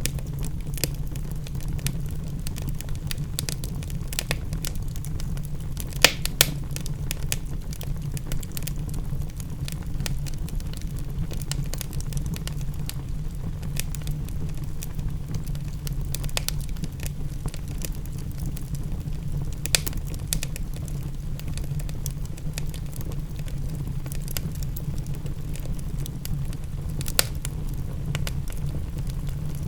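Wood fire crackling in a fireplace, with irregular sharp pops scattered through it, the loudest a pair about six seconds in. A steady low rumble runs underneath.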